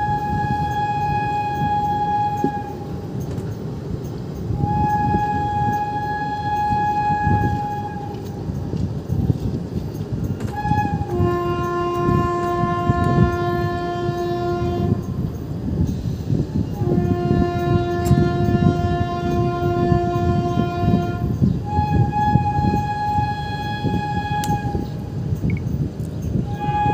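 Train horn sounding a series of long blasts of three to four seconds each: a higher note twice, then a lower, deeper note twice, then the higher note again. Underneath runs the steady rumble and wheel clatter of a moving train, heard from aboard a passenger coach.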